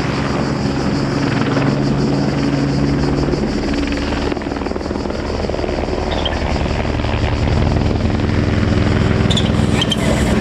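Helicopter overhead, its rotor chopping steadily with a fast, even beat over a low engine hum that shifts slightly in pitch as it moves.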